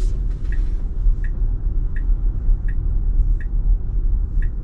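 Steady road and tyre rumble inside a Tesla Model Y cabin, with the turn-signal indicator ticking evenly about every three-quarters of a second.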